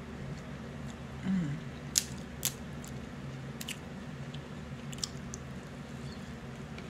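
Eating crab legs: sucking and chewing crab meat close to the microphone, with a few sharp clicks of shell and fingers about two, two and a half, three and a half and five seconds in.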